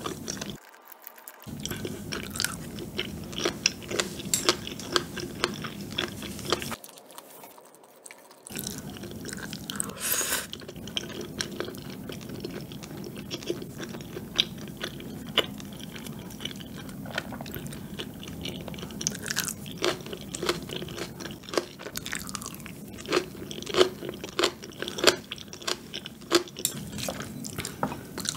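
Close-miked chewing and biting of rose tteokbokki, chewy rice cakes and fish cakes in a creamy sauce, with many short wet mouth clicks and smacks. There are two short quiet breaks, one about a second in and one around seven seconds.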